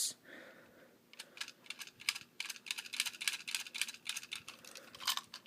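Tomy battery-powered toy train car running on plastic track: quick, irregular light plastic clicks and rattles.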